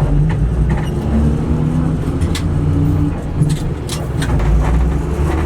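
Bus engine running steadily with a low drone that shifts a little in pitch, with a few short rattles and clicks over it.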